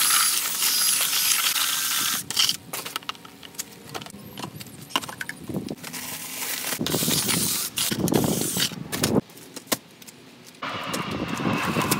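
Cordless drill with a paddle mixer whirring as it stirs mortar in a plastic bucket for about two seconds, followed by clatter and knocks. About seven seconds in, dry mortar mix rushes out of a paper sack into the bucket for a couple of seconds.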